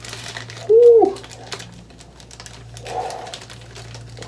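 A woman's voice exclaiming a short 'woo' about a second in, its pitch rising then falling, followed by a softer breathy sound near three seconds in.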